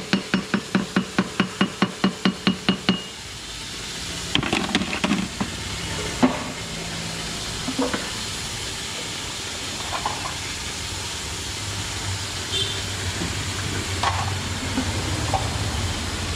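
Jeweller's wooden mallet tapping a ring on a steel ring mandrel to round out a ring dented by long wear: quick, even, ringing strikes about five a second that stop about three seconds in. After that, a steady hiss with a few scattered clinks of tools.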